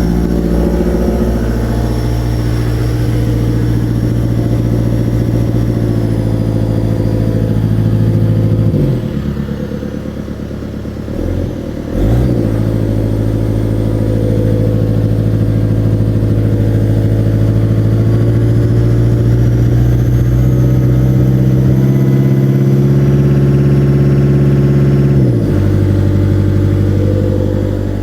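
Caterpillar 3044C-T four-cylinder turbo diesel in a Cat 277B track loader running with a misfire at mid throttle, which the owner suspects comes from bad injectors. The engine speed drops about nine seconds in, comes back up suddenly around twelve seconds, and drops again near the end.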